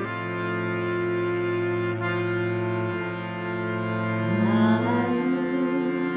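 Film score of accordion playing slow, long-held chords. About four seconds in, a voice slides up into a wavering held note above them.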